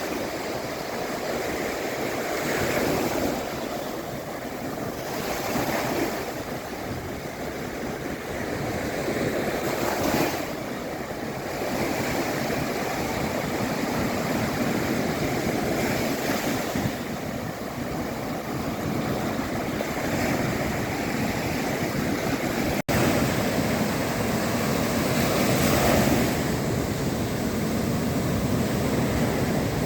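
Sea waves breaking and washing on a shore, a continuous surf rush that swells with each wave every few seconds.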